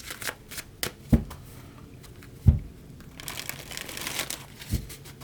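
Tarot cards being shuffled by hand, with clicks and rustling and three short thumps about a second and more apart, as the deck is handled to draw a card.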